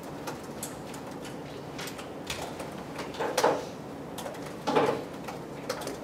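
Small handling noises in a room: scattered light clicks, with two brief louder scuffs, one a little past three seconds in and one just before five seconds in.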